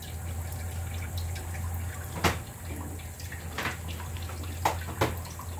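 Four short, sharp clicks, the first and last the loudest, over a steady low hum.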